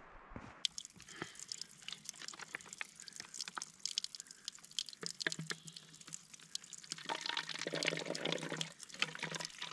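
Running water splashing and dripping, a dense patter of small splashes over a steady hiss that grows louder in the second half.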